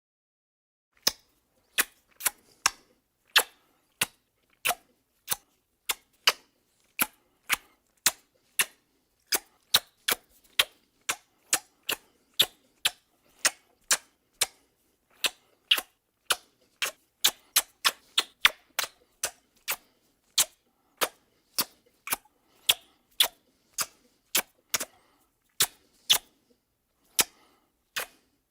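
Repeated kissing sounds: short, sharp lip smacks, one to two a second at an uneven pace, with silence between each.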